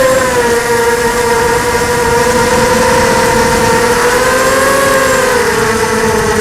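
ZMR 250 racing quadcopter's brushless motors and propellers buzzing in flight: a steady whine whose pitch wavers up and down with the throttle, briefly splitting into two tones about four to five seconds in.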